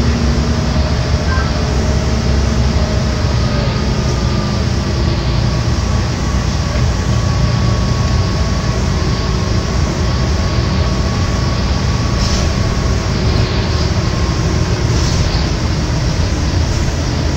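Steady low road rumble of engine and tyres heard inside a moving vehicle, with a faint whine that drifts slowly in pitch.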